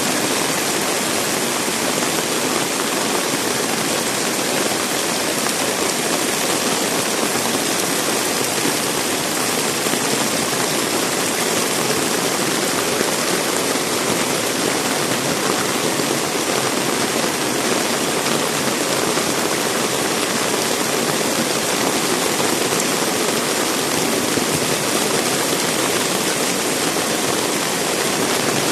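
Heavy rain falling, a steady dense hiss without breaks.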